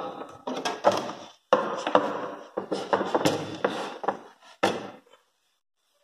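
Hands handling a benchtop VSWR meter and its coaxial cable: a few sharp knocks and clunks with rubbing and scraping between them, dying away about five seconds in.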